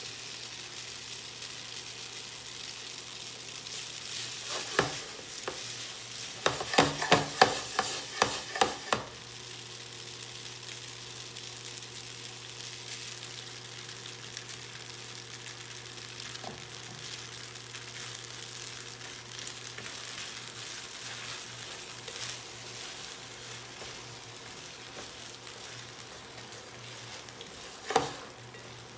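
Food sizzling in a frying pan, a steady hiss, with a quick series of utensil knocks against the pan about seven to nine seconds in and a single knock near the end.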